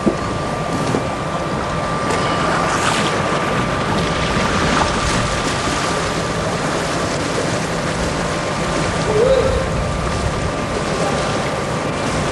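Water splashing and sloshing around a killer whale moving beside a person standing in shallow pool water, over wind noise on the microphone. A thin steady hum runs under it.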